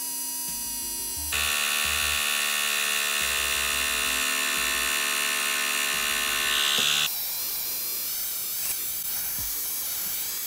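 Small battery-powered portable air compressor running, its electric motor and pump whining steadily while it inflates a basketball through a needle, with background music underneath.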